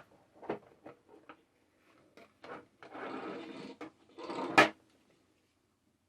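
Objects handled by hand: several light knocks and clicks, about a second of scraping or rustling, then one sharp snap about four and a half seconds in.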